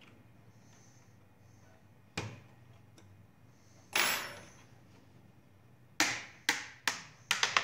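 Plastic snap-fit clips of an ASUS X541UV laptop case popping loose as the keyboard panel is pried off: a single click, a louder snap about four seconds in, then a quick run of sharp snaps near the end.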